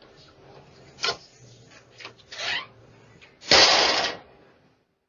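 Front door handle and lock clicking and rattling, picked up by a doorbell camera's microphone. There are a few sharp clicks, then one loud harsh rattle lasting about half a second, about three and a half seconds in.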